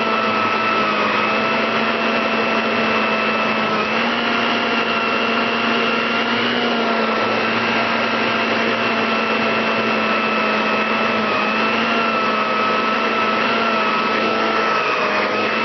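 Electrolux central vacuum system running with its electric power nozzle: a steady rushing of suction air under a whine, whose pitch dips and shifts slightly every few seconds.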